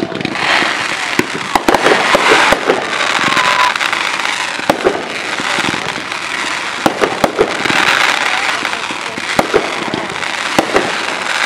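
Fireworks going off: continuous crackling with many sharp bangs scattered throughout, as several shells rise trailing crackling sparks.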